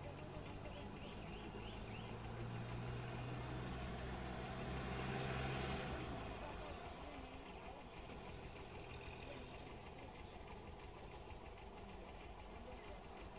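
A vehicle engine running with a steady low hum. It grows louder to a peak about five seconds in, then drops away to a quieter, lower hum.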